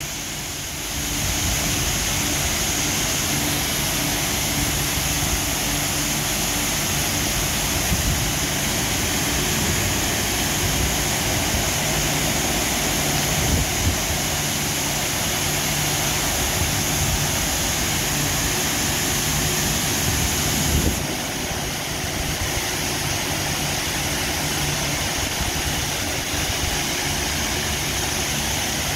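High-pressure water jets of a CSB touchless automatic car wash hissing steadily as they spray a car, over a steady low hum. About two-thirds of the way through, the spray's hiss changes and drops slightly.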